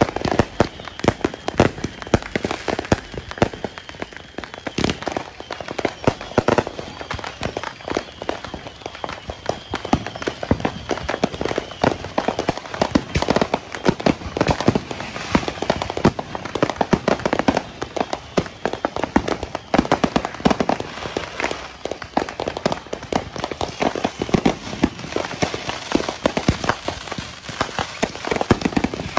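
Many fireworks and firecrackers going off at once: a dense, unbroken stream of sharp pops and bangs, several a second.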